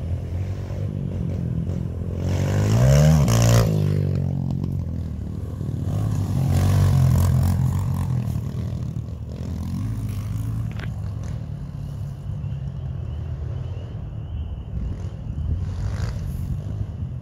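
Dirt bike engine revving as the bike comes up the trail and passes close, loudest about three seconds in, where its pitch climbs and then drops. It revs hard again around seven seconds, then runs on lower and fainter as the bike moves off.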